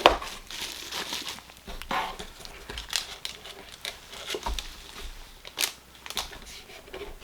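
Hands rummaging through crinkly packing material inside a small cardboard box, giving irregular rustles and crinkles with light clicks and knocks. A sharp click right at the start is the loudest sound.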